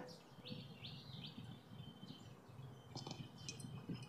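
Faint birds chirping in short calls: a few early on, then a cluster of quicker, higher chirps about three seconds in.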